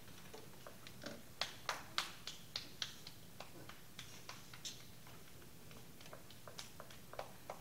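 A few people clapping hands, sharp claps at about three a second that are loudest in the first half, then thinning into fainter scattered claps and taps.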